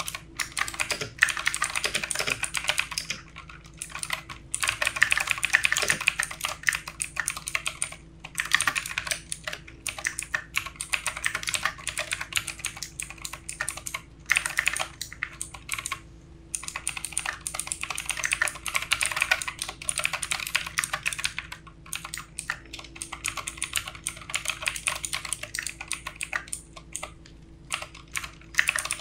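Typing on a mechanical computer keyboard: fast runs of clicking keystrokes, broken by short pauses every few seconds.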